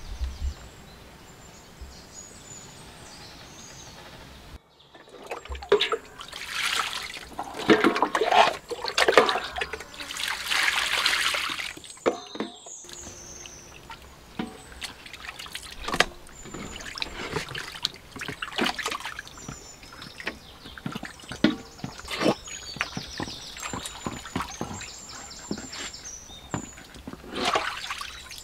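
Water splashing and trickling as raw duck giblets are rinsed by hand in a basin of water, in repeated bursts, heaviest early on. Near the end, water pours off a metal bowl being rinsed.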